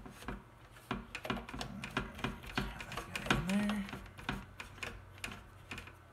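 Irregular small clicks and taps of plastic and metal parts as the mounting bolt with its rubber washers is fitted by hand into the Humminbird Ice 35 fish finder's head-unit bracket. A brief hummed voice sound comes about three and a half seconds in.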